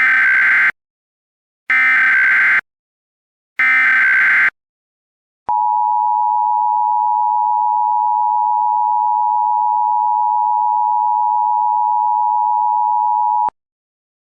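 Emergency Alert System tones. Three short bursts of SAME header data, about two seconds apart, are followed by the EAS two-tone attention signal (853 and 960 Hz), held steady for about eight seconds and then cut off abruptly. Together they mark the start of an emergency alert broadcast.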